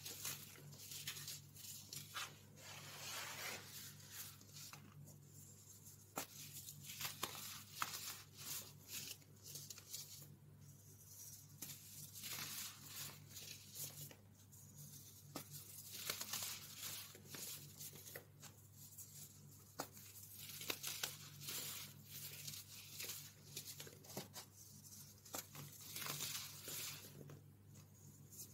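Crumbly baking-soda blocks crushed and rubbed apart between the fingers: dense, crunchy crackling with sharp little snaps and a hiss of powder, coming in irregular handfuls.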